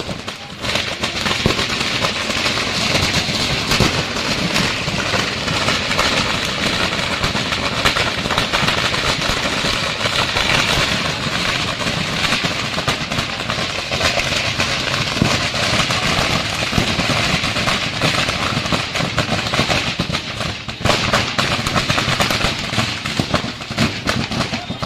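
Dense, continuous crackling and popping of many firecrackers going off one after another as fire sets off a shop's stock, with a brief lull about twenty seconds in.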